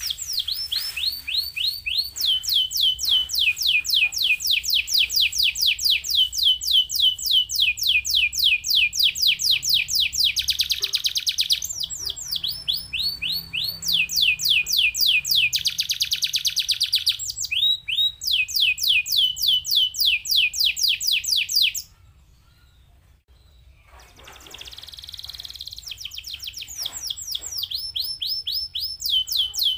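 Domestic canary singing fast rolling trills: runs of quickly repeated falling notes that change pitch every second or two. The song breaks off for about two seconds near the end, then starts again.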